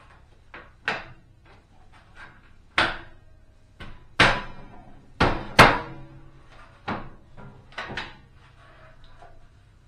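Hinged stove-top cover on an RV gas range being fitted and laid down, giving a string of sharp clacks and knocks. The loudest come in a cluster between about four and six seconds in.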